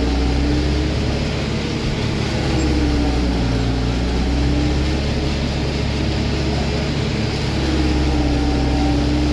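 Tractor engine and forage harvester running while chopping silage: a steady low drone with a higher whine that dips in pitch and recovers a few times.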